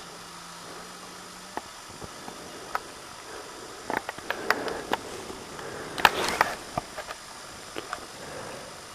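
Quiet rustling and scattered sharp clicks over a steady hiss, busiest around the middle, with a faint low hum in the first second or so.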